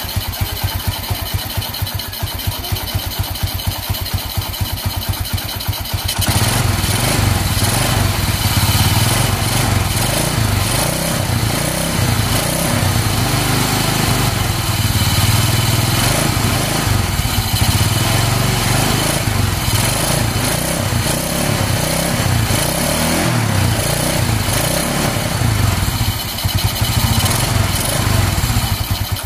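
Motorstar 125 motorcycle engine running. About six seconds in it is revved up and held at higher speed, rising and falling unevenly with the throttle. It is running on a new stator and full-wave rectifier charging setup.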